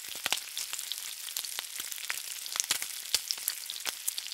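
Steady crackling hiss with many irregular sharp pops, like food sizzling in hot oil.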